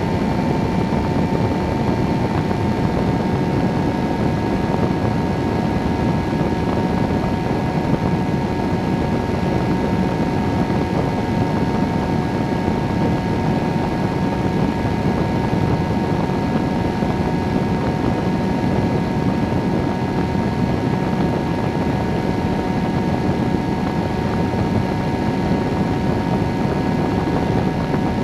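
Microlight trike's engine and pusher propeller running steadily in flight, an even drone with a constant pitch, mixed with wind rushing over the wing-mounted microphone.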